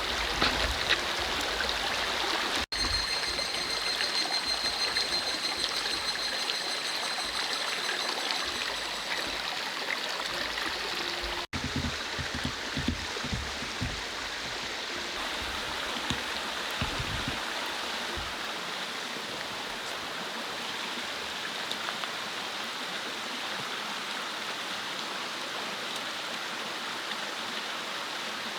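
Mountain stream running, a steady rush of flowing water. A high steady tone with overtones sounds over it between the two brief dropouts in the first third, and a few low thumps come in the middle.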